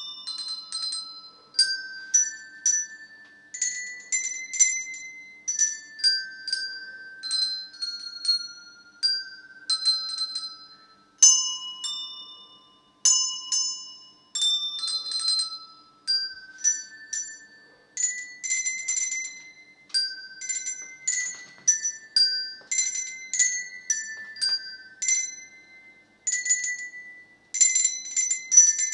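A set of small handbells rung one at a time by different ringers, each bell a different note, picking out a slow melody of single ringing tones that die away between strikes. Near the end several bells ring close together.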